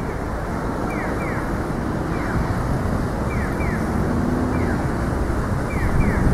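Steady low rushing noise of wind buffeting the microphone outdoors, with short high chirps that fall in pitch, singly or in pairs, about once a second.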